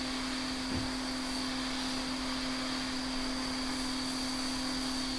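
Hakko FR-810B hot air rework station blowing steadily: a hiss of air with a steady low hum and a faint high whine, heating the charging port's solder until it melts.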